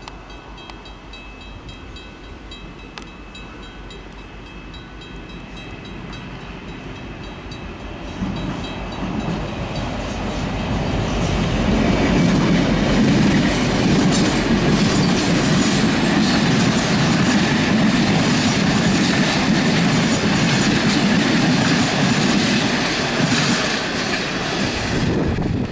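Safetran mechanical railway warning bell ringing with repeated strokes as a train approaches, then a diesel locomotive and its train pass close by with a loud rumble of engine and wheels that swamps the bell from about ten seconds in. The bell rings because a standard-gauge train is passing on its track.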